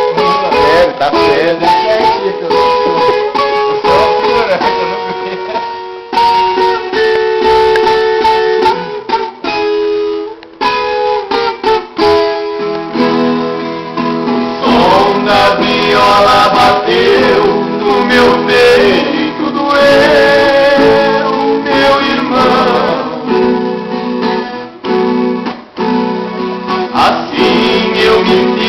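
Instrumental passage of a Brazilian sertanejo song played on a plucked acoustic string instrument, a melody of picked notes over strummed chords, before the singing comes in.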